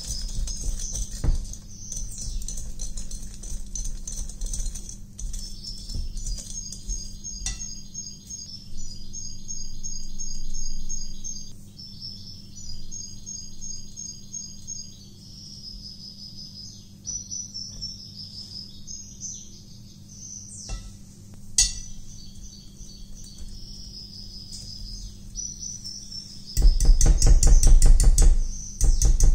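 Wire whisk beating batter in a glass bowl, a light scraping and tapping early on and a loud, fast run of strokes against the bowl near the end. High bird-like chirping runs underneath throughout.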